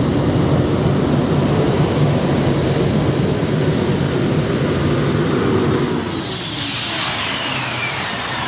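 Modified pulling tractor's multiple engines running at full power as it pulls the sled, a dense roar with a thin steady high whine. About six seconds in, the roar eases and the pitch slides down.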